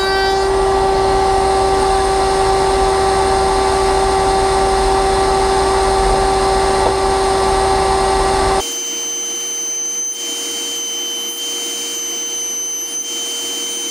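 Router in a router table spinning a raised panel bit: a steady high whine with a rush of air. About eight and a half seconds in it drops abruptly to a quieter, slightly higher-pitched whine.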